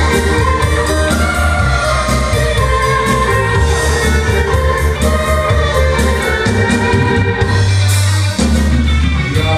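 A live band playing with a steady beat: drum kit, bass and keyboards, at full volume through the hall's PA.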